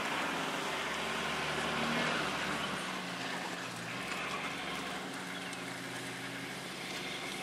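A vehicle engine idling steadily, a low hum, under a broad even hiss.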